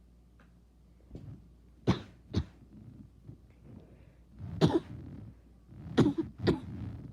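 A person with a bad cough coughing in short bouts: two sharp coughs about two seconds in, a heavier cough near the middle, and another pair of coughs near the end.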